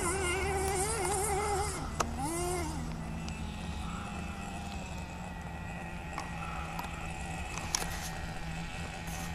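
Radio-controlled off-road car's small motor buzzing, its pitch rising and falling with the throttle for about the first three seconds, then fading to a faint steady hum. There is a sharp click about two seconds in and another near the end.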